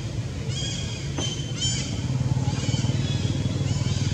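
A steady low motor hum with a fast pulse in it, with a high, arched call, rising then falling, repeating about once a second above it.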